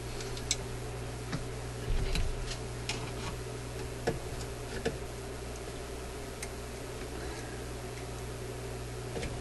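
Scattered small metallic clicks and ticks of pliers and a steel spring against the metal brackets of a record player's changer mechanism, as the spring is worked back into place. The clicks come mostly in the first five seconds, then thin out, over a steady low hum.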